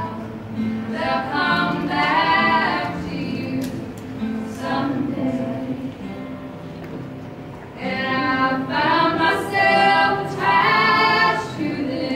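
Live folk song: women's voices singing together in harmony over a strummed acoustic guitar. The sung phrases are loud near the start and again from about eight seconds in, with a softer stretch in between.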